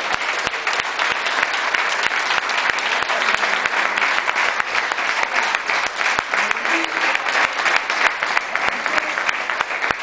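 Crowd of spectators applauding, many hands clapping in a dense, unbroken patter.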